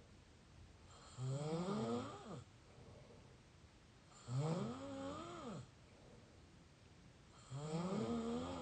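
Mouth snoring: three drawn-out snores, about three seconds apart. Each lasts about a second and has a pitch that rises and then falls.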